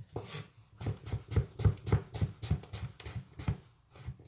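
Kitchen knife chopping through cucumber onto a cutting board: a quick run of about a dozen knocks, three or four a second, that stops shortly before the end.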